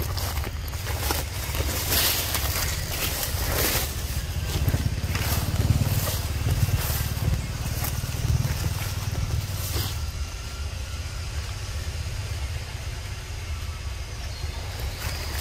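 Footsteps and rustling through leafy undergrowth and dry leaf litter, a run of irregular crunches and rustles that thins out after about ten seconds, over a steady low rumble.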